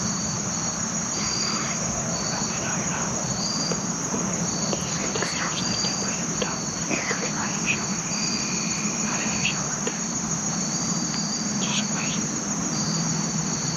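Chorus of insects singing steadily in the woods: a constant high buzz with a pulsing chirp that repeats roughly once a second. Faint small clicks and rustles, and a brief steady note about eight seconds in.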